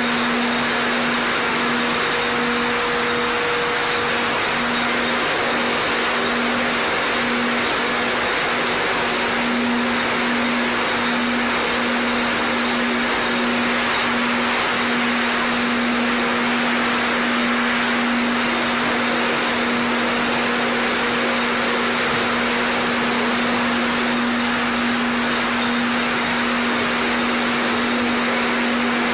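Steady machine drone of a bottle labelling line running, an even hiss with a constant low hum tone.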